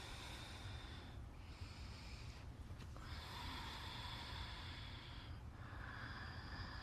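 A woman breathing slowly and deeply, several long audible breaths in and out, each lasting one to two seconds, with short pauses between them.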